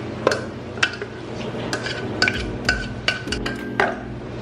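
A spatula knocking and scraping blended food out of a metal food processor bowl into a ceramic bowl, about two knocks a second, several leaving a short metallic ring. Soft background music underneath.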